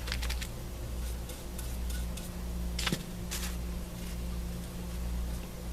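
Thin paper napkin being handled at a craft table: a few soft rustles and small sharp clicks, the sharpest about three seconds in, over a steady low hum.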